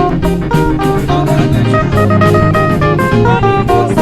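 Live worship band music: a guitar picking a melody over bass and a steady drum-kit beat.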